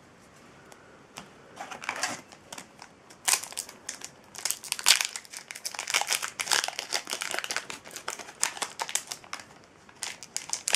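Foil wrapper of a Yu-Gi-Oh booster pack crinkling as it is handled and opened by hand: a dense run of crackles that starts about a second in, is thickest in the middle and thins out near the end.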